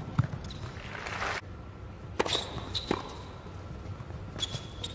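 Tennis ball bouncing on an indoor hard court between points: a few separate sharp bounces, some with a brief high squeak of court shoes, after a short rush of crowd noise about a second in.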